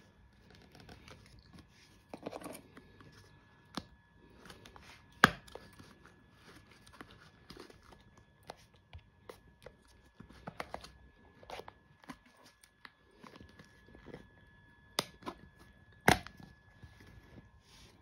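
A package being opened by hand: packaging tearing and rustling with scattered clicks, and two sharp knocks, the loudest about five seconds in and near the end.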